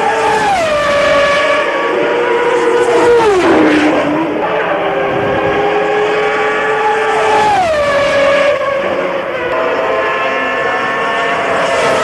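Formula 1 engine running at high revs, a loud, high-pitched note that holds steady and then drops sharply in pitch four times.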